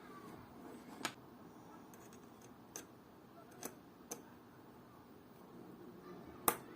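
Sharp little clicks at irregular intervals, about five in all with the loudest near the end, from watchmaker's tools and small metal parts being handled on the bench during a movement service.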